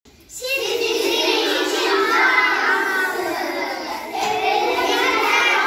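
A class of young schoolchildren's voices together in chorus, starting about half a second in, with a short dip around four seconds.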